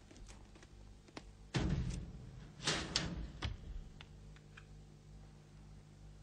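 A wooden door slammed shut with a sudden bang about a second and a half in. About a second later comes a sharper rattling clatter, then a few small clicks.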